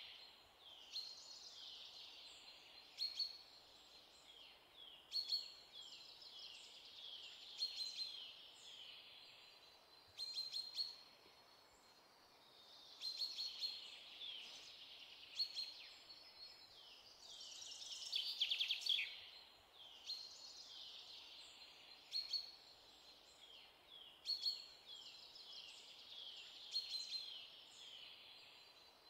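Birds chirping and singing, with short high calls and falling trills repeating every couple of seconds over faint background noise.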